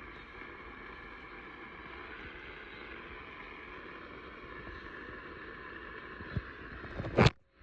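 Steady radio static hiss from a receiver with no programme audible, thin and lacking deep or very high tones. About seven seconds in, a single loud crackle sounds and the audio drops out.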